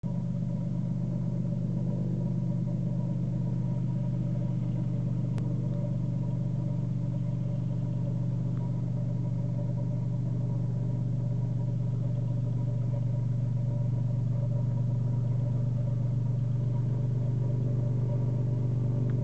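Turbocharged Cessna 182's six-cylinder piston engine and propeller running at low taxi power, a steady drone that grows slightly louder near the end.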